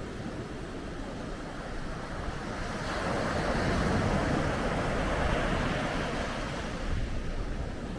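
Ocean waves breaking on a beach: a wave swells and washes in about three seconds in, loudest around the middle, then subsides, with some wind on the microphone.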